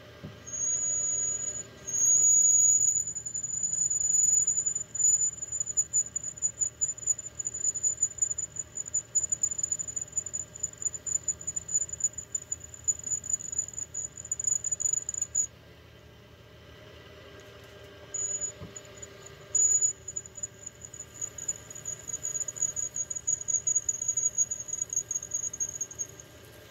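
5 mm twist drill squealing as it cuts through a lubricated mild steel bar in a mini mill. It gives a high, steady squeal that pulses in loudness, stops for about two seconds just past the middle, then resumes.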